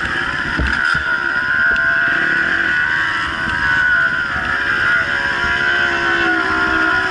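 Dirt bike engines running under way, the revs rising and falling with the throttle over a steady rushing noise.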